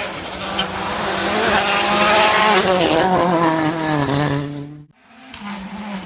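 A World Rally Car's turbocharged four-cylinder engine running hard as it comes past, growing louder to a peak about two seconds in, then its pitch falling as it goes by. The sound cuts off abruptly about five seconds in, and another rally car's engine is heard approaching at a distance.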